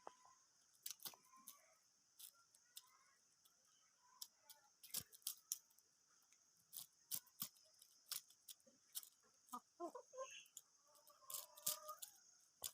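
Hens clucking softly, with many sharp clicks and taps throughout.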